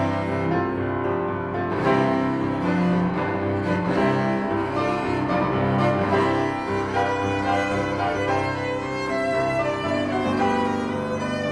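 Cello and grand piano playing a fast classical-style sonata movement (an allegro), the bowed cello line running continuously over the piano's accompaniment.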